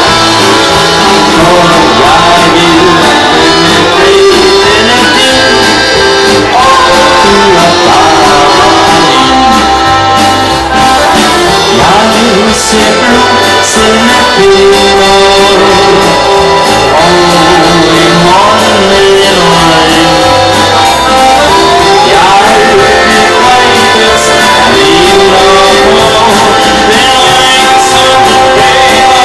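Accordion band playing a song live: several accordions together, backed by guitar and drums, loud and without a break.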